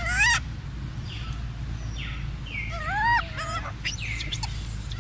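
Baby macaque giving high-pitched coos: a short rising-and-falling call at the start and a longer wavering one about three seconds in, with a few short falling chirps in between.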